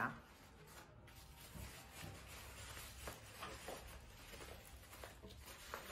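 Faint rustling and crinkling of wrapping paper being layered around a wrapped apple, with a few soft scattered crinkles.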